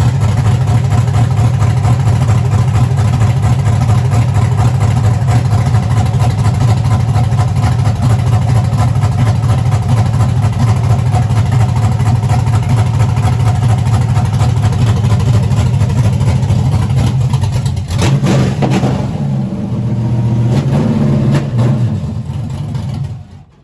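383 cubic-inch stroked 5.3 LS V8 with a nitrous-grind camshaft running steadily. About eighteen seconds in the sound changes, then it dies away near the end.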